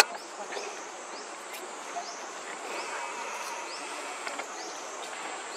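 Steady high-pitched insect drone in forest trees, with short falling chirps repeating about twice a second. A single sharp click comes right at the start.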